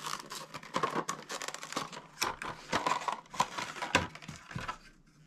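Clear plastic packaging crinkling and rustling in irregular bursts as it is handled and opened to take out an ACOG kill flash. The crinkling dies away near the end.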